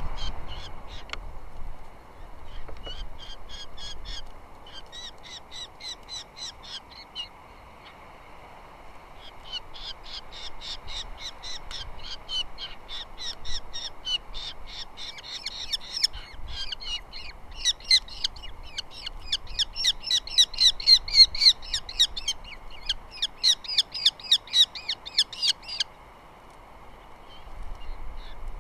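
Osprey calling in rapid runs of short, high chirps: two brief runs, a pause, then a long unbroken run that grows louder before stopping near the end.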